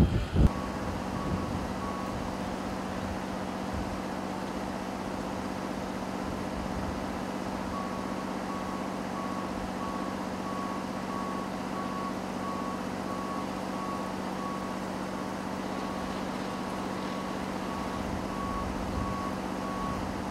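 A vehicle's backup alarm beeping steadily, about one and a half beeps a second, over the steady hum of a large engine running. The beeping starts briefly near the start, pauses, then returns and keeps going.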